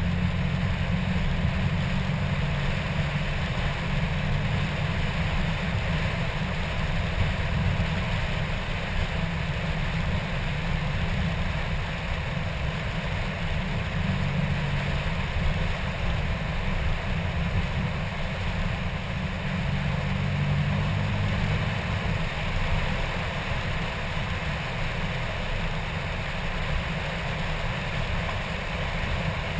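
Car driving on tarmac, heard through a camera mounted on its hood: a steady low rumble of engine and wind with a fainter hiss of road and air noise above it.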